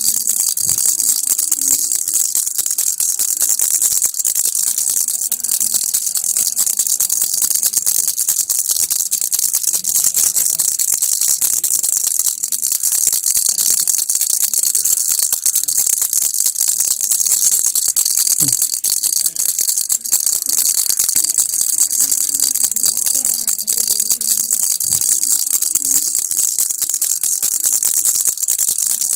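A baby rattle shaken without pause, a steady, bright, dense clatter of its loose beads.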